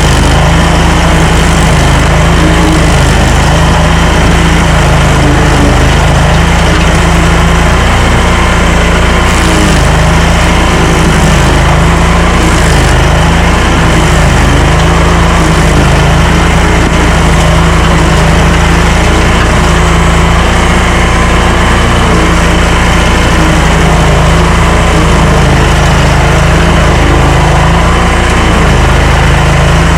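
Stump grinder engine running hard under load, its note dropping and recovering every second or two as the cutter wheel bites into the stump.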